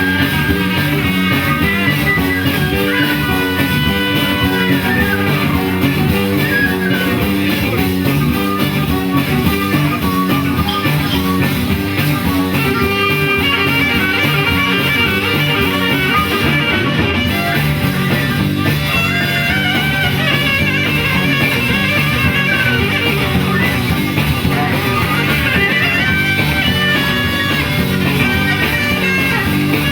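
A live band playing an instrumental number, with guitar prominent over a steady beat.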